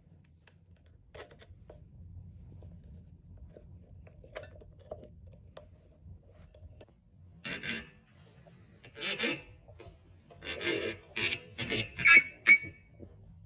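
A hand tool scraping or rasping on a part in a series of short strokes, about eight of them in the second half, after a few faint clicks.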